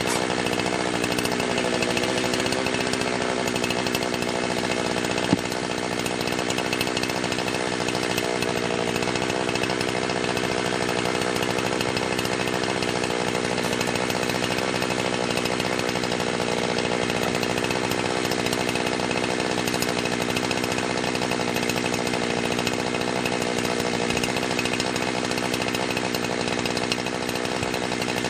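Jonsered 2071 two-stroke chainsaw with its stock muffler running steadily and loudly, with one sharp knock about five seconds in. The owner thinks it is running fairly rich on its carburettor setting.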